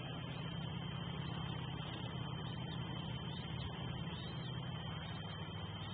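Steady low rumble of road traffic picked up by the nest camera's microphone, with a faint steady high whine above it.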